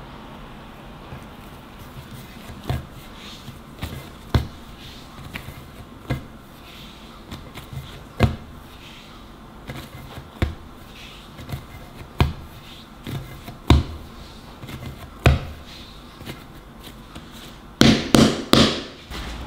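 Bread dough being shaped by hand on a marble board: soft thuds about every one and a half to two seconds as the dough is pressed down and tucked into a ball, with a quick run of louder slaps near the end.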